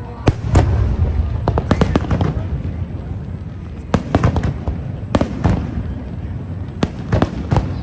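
Fireworks going off: a string of sharp bangs and crackles that come in quick clusters every second or two, over a continuous low rumble.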